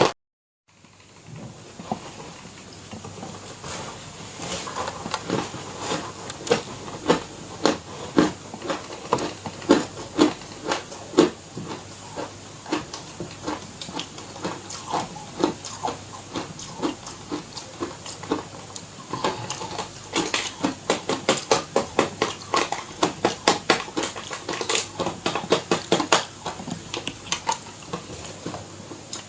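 Ice being bitten and chewed close to the microphone: a long run of sharp, crisp crunches, a few a second, after a brief silent gap near the start.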